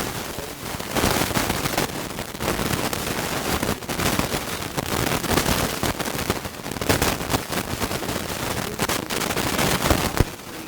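Loud static crackling from a faulty audio signal: dense, irregular crackles and pops that drown out the voice, then cut off suddenly near the end.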